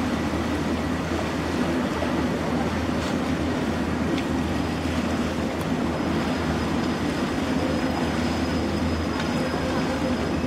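Ferry's diesel engine running steadily with a deep rumble and churning noise. A faint high squeal joins in about four and a half seconds in.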